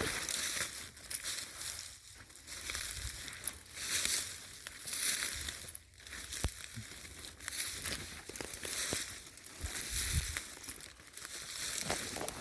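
Footsteps crunching through dry leaf litter and brush at a walking pace, with crackling and scraping of twigs and briars against clothing.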